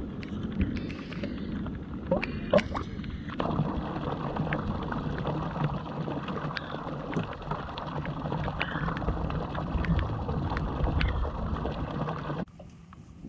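Rain falling and wind buffeting the microphone on an open bass boat, over a low steady hum, with scattered sharp ticks and knocks, the loudest about two to two and a half seconds in. Near the end the noise drops suddenly to quieter rain.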